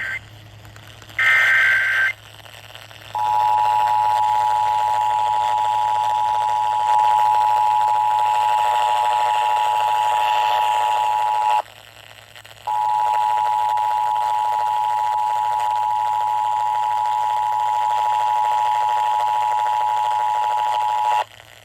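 Emergency Alert System broadcast tones. First comes a short burst of screeching digital SAME header data. Then the two-tone EAS attention signal sounds, a steady harsh alarm of two notes near 853 and 960 Hz. It holds for about eight seconds, breaks off for a second, then sounds again for about eight seconds, over a low electrical hum.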